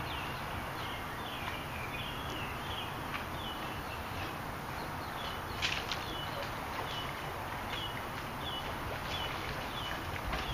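A bird calling over and over in short, high chirping notes, about two a second, over a steady low rumble, with one sharp click a little past halfway.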